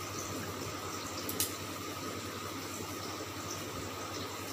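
Steady background hiss with a faint low hum and a thin steady whine, broken once by a single short click about a second and a half in.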